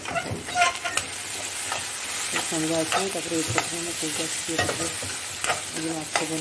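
Onion and tomato masala frying and sizzling in an aluminium kadhai while a steel spatula stirs it. The spatula scrapes and taps against the pan, and from about two and a half seconds in the scrapes give short pitched ringing notes.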